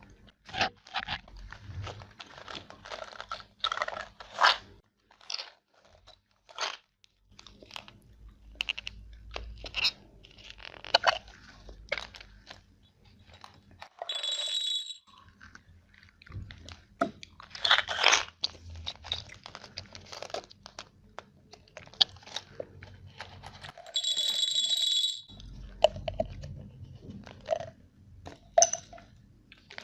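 Chocolate being bitten and chewed with irregular crunches. Twice a steady high-pitched sound lasts about a second.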